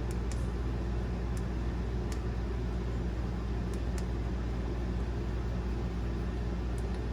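Steady low hum, with a few faint, light clicks of the flashlight's switch scattered through it.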